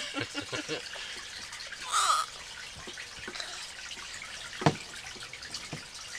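Scattered small knocks and clatter, with a brief high squeak about two seconds in and one sharp knock near the five-second mark.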